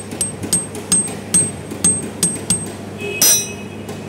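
Light hammer taps on the idle air control valve's screws on a throttle body: about eight quick metallic taps with a high ring, then one louder clang with a ringing tail a little after three seconds in. The tapping loosens the stuck screws before they are undone.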